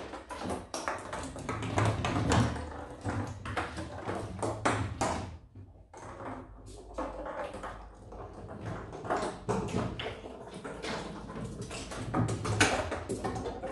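A pine cone batted by playing kittens, clattering and rolling across wooden deck boards: a rapid, irregular run of taps and knocks with a few heavier thumps, easing briefly about six seconds in.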